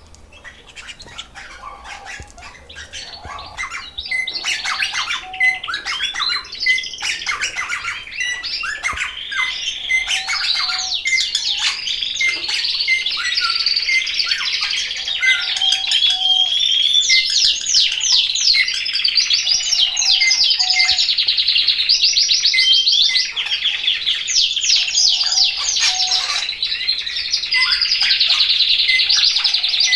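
Canaries singing: a continuous stream of rapid trills and chirps that grows loud about four seconds in. It is the lively song of birds coming into breeding condition.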